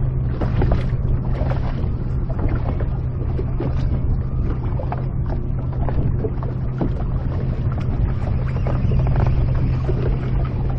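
Electric trolling motor on a fishing boat running with a steady low hum, with wind buffeting the microphone and light knocks scattered through.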